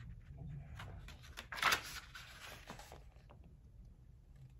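Paper pages of a Louis Vuitton notebook being handled and turned: faint soft clicks and rustles, with one louder brief rustle about a second and a half in.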